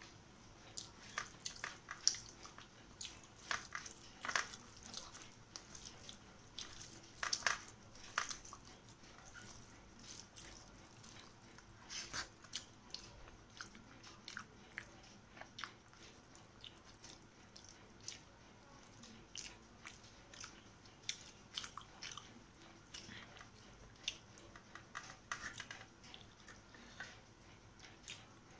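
Eating sounds of rice and fish curry eaten by hand: irregular, quiet wet clicks and smacks of chewing and of rice being squished and mixed with the fingers, a few a second, busier in the first eight seconds and again around twelve seconds in.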